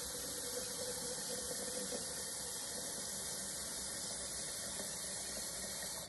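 Water from a kitchen faucet running steadily into a Krups Cool Touch stainless steel electric kettle, filling it.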